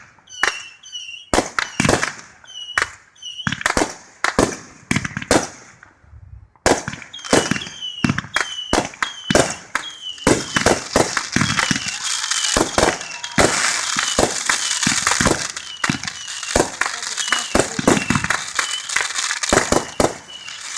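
Firecrackers going off in rapid strings of sharp bangs, with a short break about six seconds in; from about ten seconds in a dense, continuous crackling runs under the bangs.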